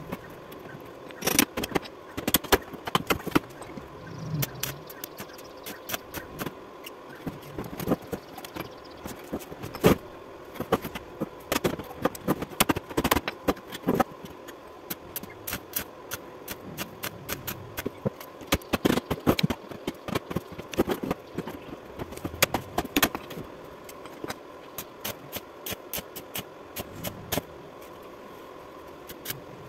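Irregular sharp metallic clicks and clinks as the steel frame and axle of a wheelbarrow are handled and knocked during a welding repair, over a steady faint hum.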